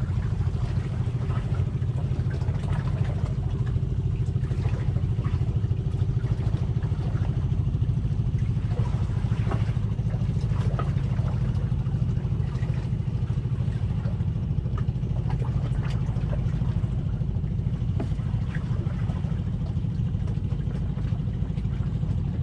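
An engine runs steadily at a low pitch without change, with a few faint clicks over it.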